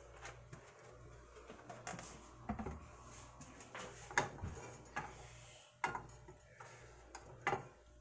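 A few light, irregular knocks and clicks of a skillet being handled on an electric stove's coil burner, over a low steady hum.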